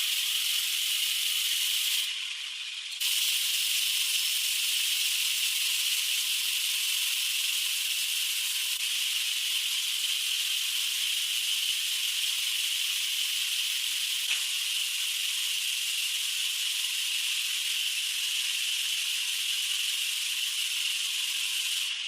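A steady hiss, strongest in its upper range, that drops out briefly about two seconds in and then carries on unchanged.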